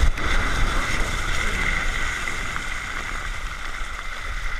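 Steady rushing hiss of moving water and wind, easing slightly toward the end.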